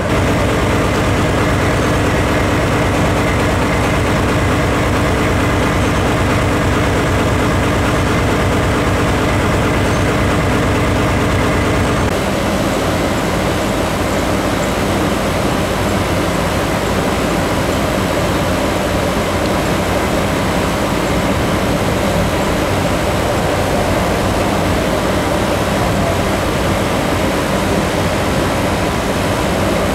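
DE10 diesel-hydraulic locomotive's V12 diesel engine idling close by with a steady drone. About twelve seconds in, the sound changes to the same engine heard from farther away, running as the locomotive draws slowly nearer with its coaches.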